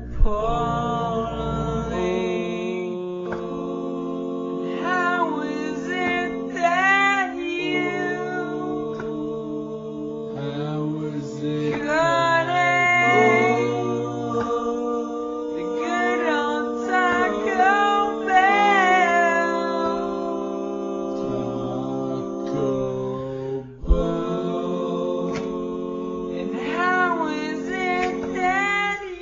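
Slowed-down music: a drawn-out, gliding sung voice over long held chords, with a brief break near the end.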